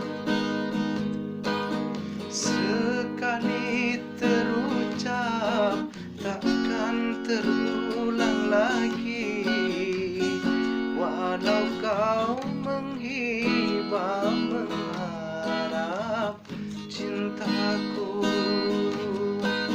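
A man singing with vibrato over a strummed acoustic guitar.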